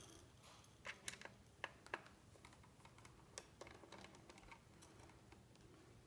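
Faint, light metal clicks and ticks from a screwdriver and the small screws of a laptop's hard drive caddy being worked loose and handled: a handful in the first two seconds, one more just past the middle, otherwise near silence.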